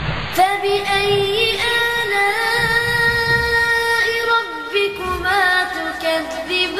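Sung vocal interlude: a singing voice holding long, drawn-out notes with small ornamental turns, starting abruptly.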